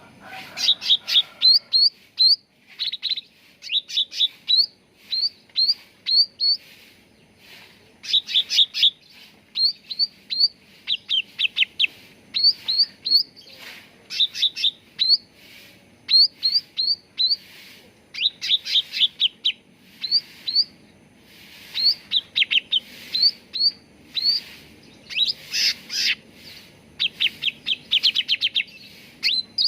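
Common iora (cucak ranting) song: quick runs of short, sharp, high whistled notes, three to eight in a run, repeated over and over with short pauses between.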